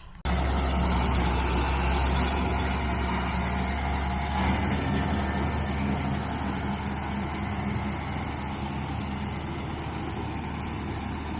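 Farm tractor's diesel engine running steadily under load while pulling a mower conditioner through tall hay, a deep drone with the cutter running; it eases off slightly near the end.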